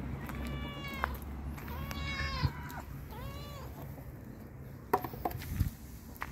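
A cat meowing three times, each meow rising and then falling in pitch.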